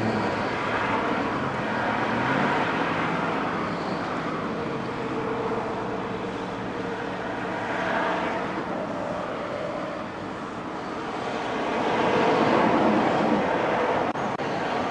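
Highway traffic passing: a steady road rumble of tyres and engines that swells as vehicles go by, once about halfway through and again for a few seconds near the end.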